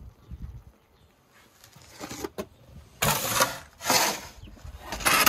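Wooden peel scraping and sliding across the stone floor of a wood-fired brick oven, several scraping strokes starting about two seconds in, as it is pushed under a baked khachapuri to lift it out.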